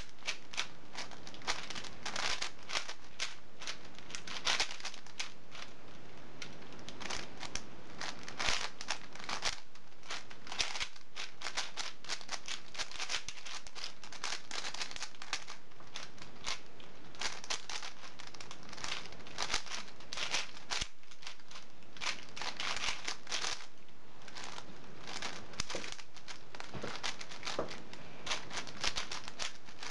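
Continuous rapid clicking and clacking of plastic twisty-puzzle cubes being turned at speed, here a 5x5 and a 4x4 cube being solved at the same time.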